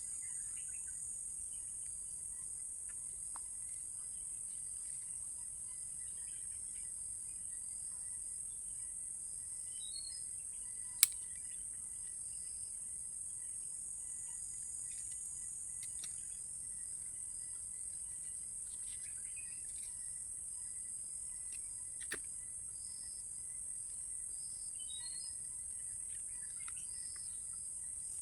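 Steady, high-pitched chorus of crickets or similar insects, with faint scattered bird chirps. A single sharp click about eleven seconds in and a softer one near twenty-two seconds.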